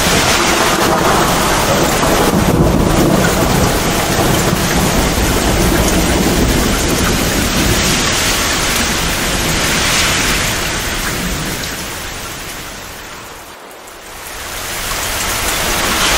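Heavy, steady rain pouring with a low rumble of thunder underneath. The whole storm fades down about three-quarters of the way through, then swells back.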